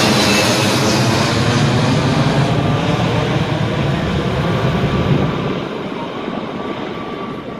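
Twin-engine jet airliner flying overhead and away, its engines making a loud, steady rushing jet noise that starts to fade about five seconds in.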